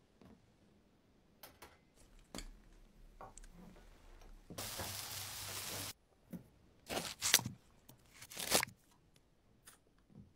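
Food-prep sounds on a wooden cutting board: light taps as food is handled, a steady rustle lasting over a second near the middle, then a few crisp, crunching knife cuts through a thick green onion.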